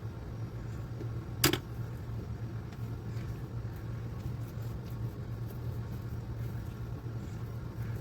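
Steady low mechanical hum, with one sharp click about a second and a half in.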